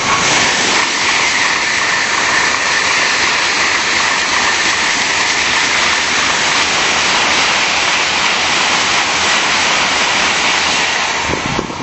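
Tokaido Shinkansen bullet train passing close by at speed: a loud, steady rushing noise that cuts off suddenly near the end as the last car goes by.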